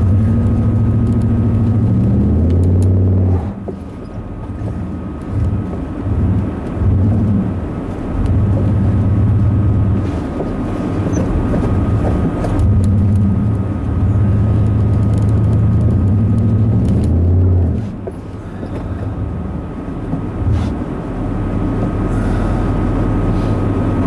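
Engine of a snow-clearing machine working through deep snow, heard from its cab. A deep engine note drops about three and a half seconds in and again near eighteen seconds, then comes back up, with a thin steady whine above it throughout.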